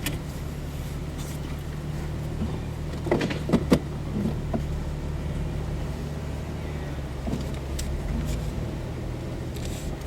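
Jeep engine running steadily at low revs, with a few short sharp knocks about three to four seconds in.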